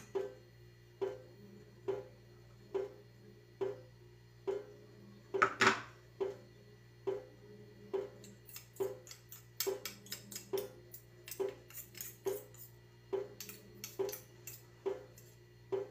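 Metal spoon clinking and scraping against a small food chopper's blade and a bowl as garlic paste is scraped off, with many small clicks in the second half and one louder knock about five seconds in. A soft regular beat, about one pulse a second, runs underneath.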